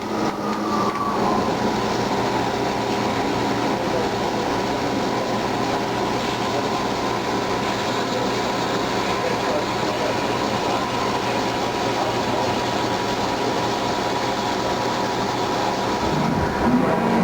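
Haas CNC lathe turning an aluminum workpiece: steady machining noise with a spindle whine. The whine drops in pitch in the first second and then holds steady, and a brief rising sound comes near the end.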